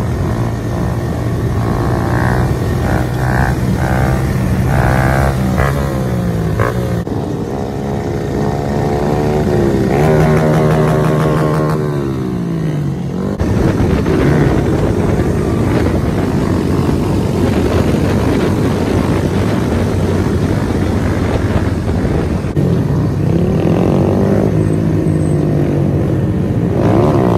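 Honda Grom mini bike engines revving as riders hold wheelies, the engine note climbing and falling again and again, with more than one bike running at once.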